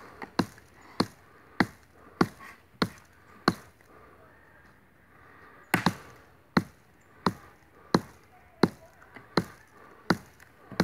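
Small hatchet chopping a wooden stick lying on the ground: sharp, single strokes about every two-thirds of a second, with a pause of about two seconds midway before the chopping picks up again.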